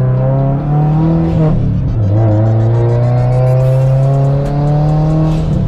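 2018 Subaru WRX STI's turbocharged flat-four engine accelerating through the gears: the engine note climbs, drops at a gear change about two seconds in, then climbs steadily in the next gear until another shift near the end.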